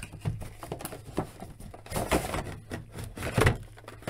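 Cardboard action-figure box and its clear plastic tray being handled: the end flap opened and the tray slid out, giving irregular scraping, rubbing and crinkling clicks, louder about two seconds in and again about three and a half seconds in.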